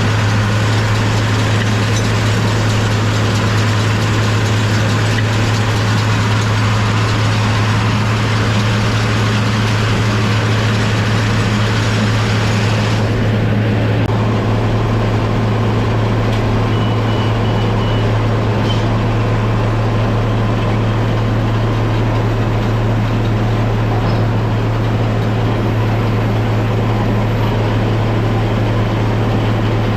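John Deere 4230 tractor's six-cylinder diesel engine running steadily, a constant deep hum with a hiss of mechanical noise over it. About halfway through, the high hiss drops away abruptly while the engine hum carries on unchanged.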